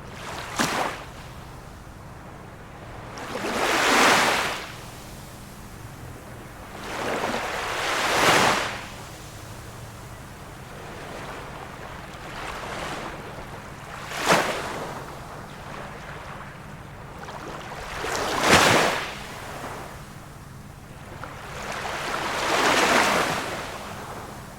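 Small waves of a calm sea washing in, one swell of rushing water about every four seconds, some ending in a short sharp splash.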